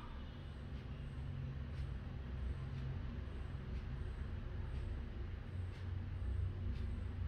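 Steady low rumble of background noise, with faint regular ticks about one and a half times a second.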